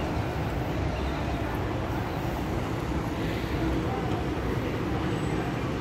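Steady city street ambience: a constant low rumble of traffic and urban noise, with no distinct events standing out.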